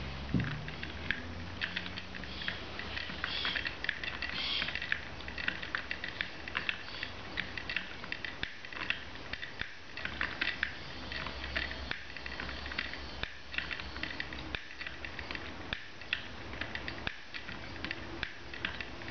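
Hand-cranked wooden kiwi automaton running: its small gear, crank and wooden leg linkages clicking and clattering in rapid, irregular ticks as the mechanism turns.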